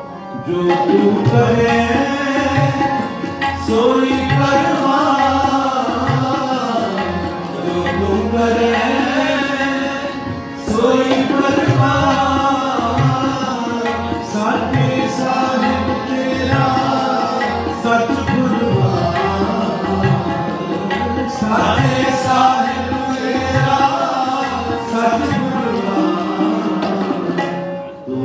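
Sikh shabad kirtan: voices singing to two harmoniums, with a tabla keeping a steady beat under them, its low bass-drum strokes clearly heard.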